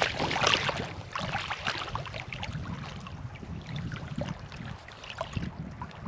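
Water splashing and sloshing as a landing net is worked through shallow water to land a hooked fish, loudest in the first second or so and lighter after, with wind rumbling on the microphone.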